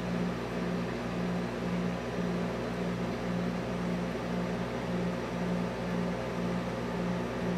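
Steady machine hum, a low droning tone that pulses evenly a little under twice a second.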